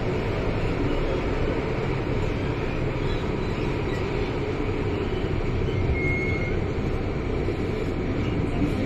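MTR Island Line M-Train heard from inside the car while running through a tunnel: a steady rumble of wheels and traction motors, with a brief high tone about six seconds in. The car's motor sound is doubled, an unusual double motor note that it keeps even while slowing down.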